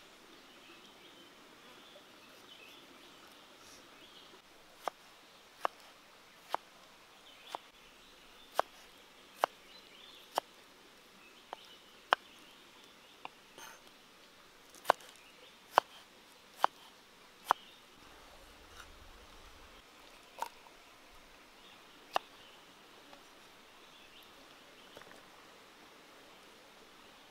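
Kitchen knife chopping tomatoes on a wooden chopping board: about sixteen sharp knocks of the blade meeting the board, about one a second, starting about five seconds in and thinning out to a last couple of chops over a faint steady background hiss.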